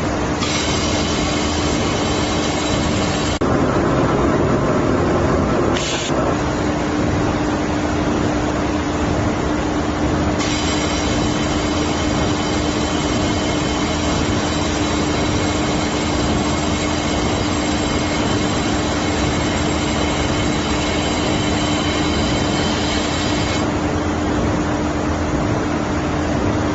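Automatic fiber laser welding machine running while welding stainless steel: a steady hum and hiss, with a high whine that comes in for about three seconds at the start and again for about thirteen seconds from about ten seconds in. A louder rush of noise lasts a couple of seconds around four seconds in.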